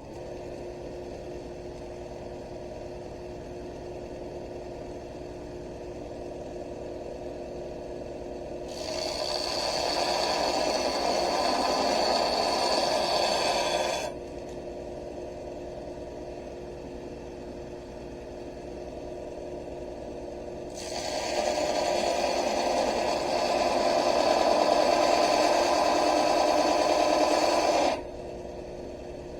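Electric grinder running steadily, twice grinding steel for about five to seven seconds at a time. The sound grows much louder and harsher while it is under load.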